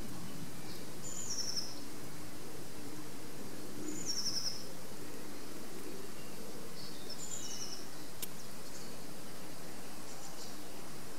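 A songbird repeating a short, high, descending trill three times, about three seconds apart, over a steady low rush of background noise, likely wind in the trees. A single sharp click comes about eight seconds in.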